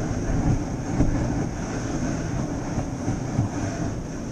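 Steady low rumble of wind on the microphone with surf behind it.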